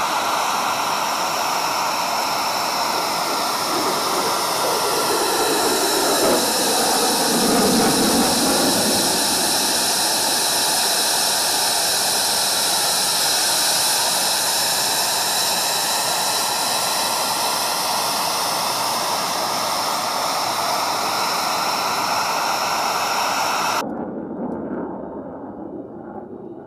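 Jet roar of the F-22 Raptor's twin Pratt & Whitney F119 turbofans in a flyby, a loud, steady rush with a high whine over it, swelling and shifting in pitch as the jet passes about eight seconds in. It cuts off abruptly a few seconds before the end, leaving a quieter, fading sound.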